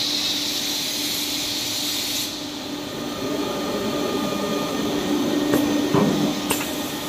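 UPVC corner (V) welding machine running while the profile ends melt against its heated plate: a steady hiss over a hum. The hiss drops away suddenly about two seconds in, and a few sharp clicks and knocks come near the end.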